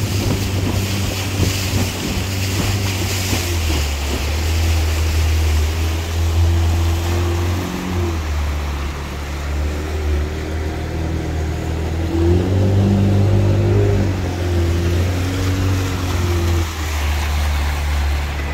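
Motorboat engine running under way, its pitch dipping and rising several times as the throttle changes, over the rush of water and wind on the microphone.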